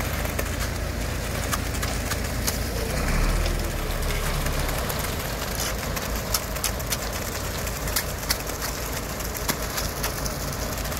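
Concrete mixer truck running while wet concrete pours down its chute, a steady rushing, gravelly pour with scattered clicks over the low rumble of the engine. The rumble swells briefly about three seconds in.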